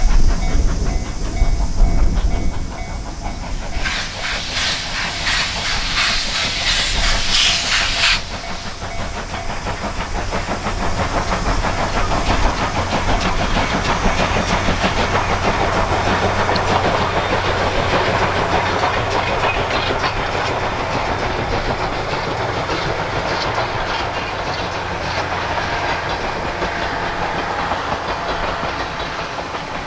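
A JNR Class C57 steam locomotive hauling passenger coaches past, working hard with a loud low chuffing early on. From about four seconds in, a burst of steam hiss runs for around four seconds and cuts off sharply. After that the coaches roll by with a steady clickety-clack of wheels over the rail joints.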